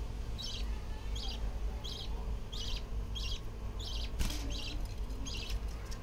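Budgerigars chirping in short, high calls repeated about twice a second, with a single sharp click about four seconds in.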